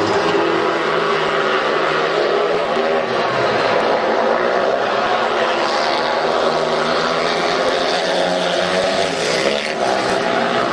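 Four speedway bikes racing, their 500cc single-cylinder methanol engines running hard together, the pitch rising and falling as they go round the track.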